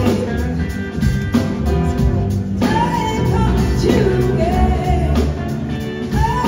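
Live blues-rock band playing: a woman's lead vocal over electric guitars and drums, heard from the audience in a theatre.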